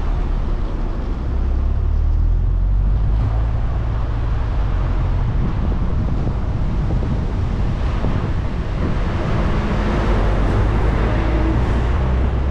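A car driving: a steady low rumble of road and engine noise, with a broader rushing noise that grows louder in the second half.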